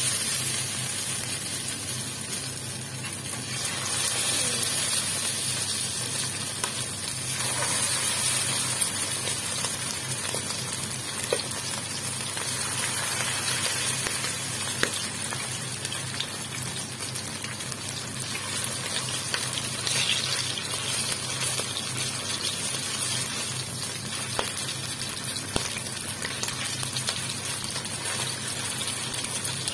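Chicken liver pieces sizzling as they fry in shallow hot oil in a stainless steel wok, a steady hiss with a few sharp clicks and pops.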